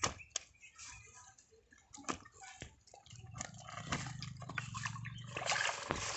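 Wet clicks, taps and drips as small fish are handled on a wet, muddy fishing net and dropped into a bag.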